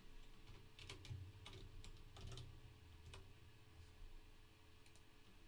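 Faint computer keyboard typing: a handful of scattered keystrokes as a search term is typed into a code editor's find box.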